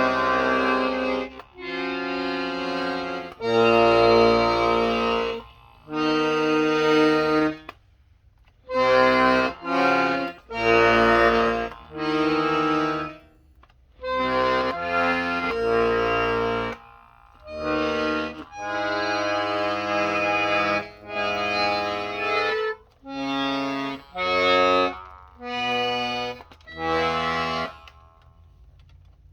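Hohner Tango II accordion's bass and chord buttons sounded one at a time, each held for about half a second to two seconds, with short gaps between.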